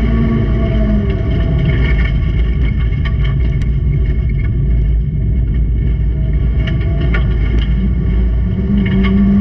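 Junior racing car's engine running hard under a heavy rumble, its steady note dropping back after the first second and coming up strongly again near the end, with scattered sharp clicks and knocks.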